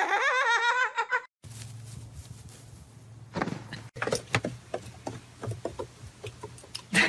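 For about a second a high, wavering voice rises in pitch, then cuts off. After that a low steady hum runs under a series of crunching, crackling steps in snow.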